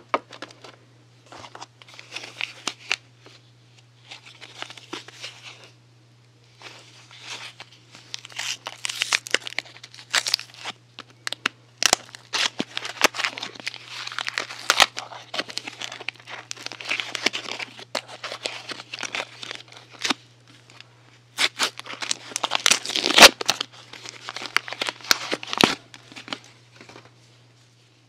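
Soap packaging being unwrapped by hand: wrapping crinkling and tearing in irregular bursts with sharp clicks and short pauses, busiest in the second half.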